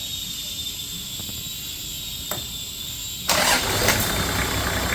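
Toyota Landcruiser 1HZ straight-six diesel starting up on its first start after a full rebuild: a click a little past two seconds in, then the engine catches suddenly just after three seconds and settles into a steady idle.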